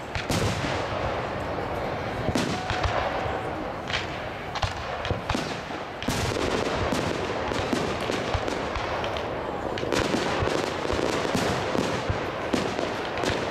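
Aerial fireworks shells bursting one after another, a string of sharp booms and pops over a continuous noisy background. The reports come thicker and louder about halfway through.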